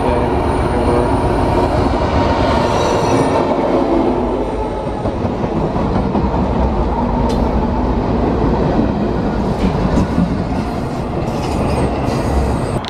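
Double-stack intermodal freight train passing close by: a loud, steady rumble of the locomotive and the cars' wheels on the rails.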